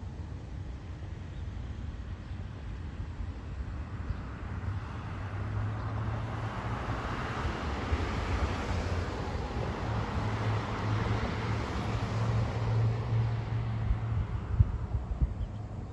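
A passing vehicle: a steady low engine hum under a rushing noise that swells over several seconds and fades again, with a single sharp click near the end.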